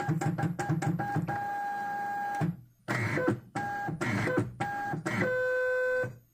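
Zebra GK420t label printer's stepper motor running in a string of short stop-start feeds of the label stock, a whine broken by clicks. There is a short pause about two and a half seconds in; the last run, at a lower pitch, stops about six seconds in. The printer is not aligning to the next label as it should.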